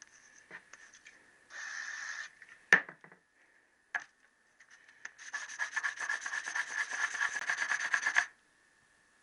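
A rust-stained motorcycle big-end bearing shell being rubbed on 1000-grit wet-and-dry abrasive paper to clean the rust off its edge without removing metal. A short scrape comes about a second and a half in, then a sharp knock and a click, then about three seconds of quick back-and-forth sanding strokes that stop suddenly.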